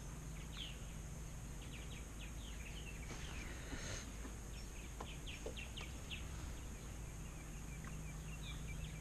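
Outdoor waterside ambience: a steady background hiss with scattered quick, high chirps of small birds calling in short runs.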